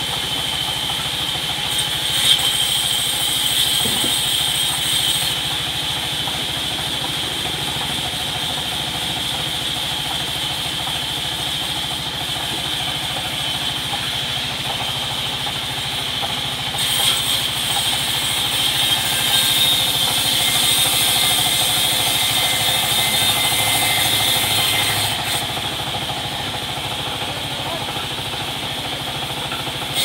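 Sawmill band saw running steadily with a high whine while cutting teak timber, louder for a stretch in the second half. A brief knock about two seconds in.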